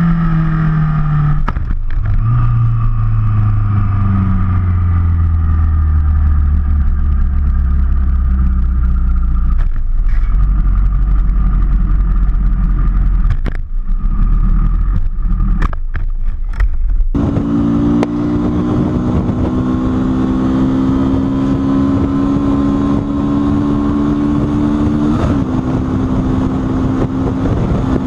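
Onboard sound of a Honda sportbike's engine winding down, its pitch falling steadily over several seconds. After a sudden cut, a second sport bike's engine pulls with slowly rising pitch, with a brief shift near the end.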